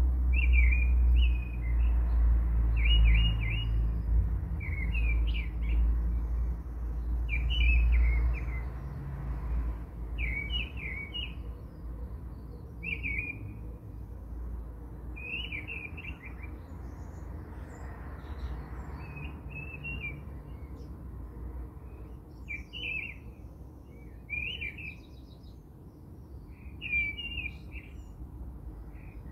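A small bird chirps a short call over and over, every two to three seconds, over a low rumble that is loudest in the first third and then dies down.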